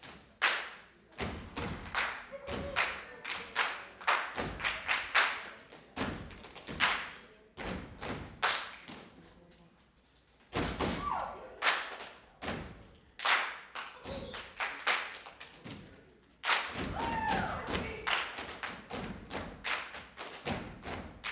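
Stage body percussion by a troupe: stomps on the stage floor, claps and body slaps in fast rhythmic phrases, with short pauses about ten and sixteen seconds in.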